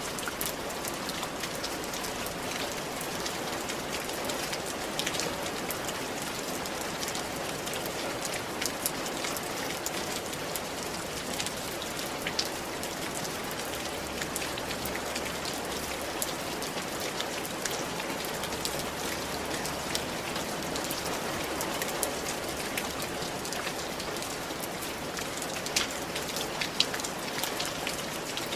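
Steady rain falling on a tiled roof: a dense, even hiss with many sharp drop ticks scattered through it.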